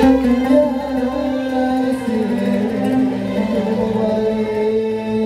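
Live gambus band music: the keyboard and plucked strings hold a few steady sustained notes with no singing, closing out the song.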